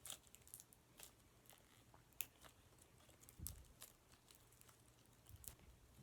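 Near silence broken by faint, scattered clicks and crackles of slime being handled, with a soft low thump about three and a half seconds in.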